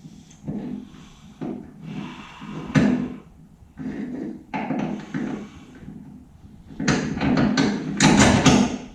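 Irregular metal clunks, knocks and scraping from heavy car parts being handled and fitted during the installation of a rear axle assembly, ending in a quick cluster of sharp knocks near the end.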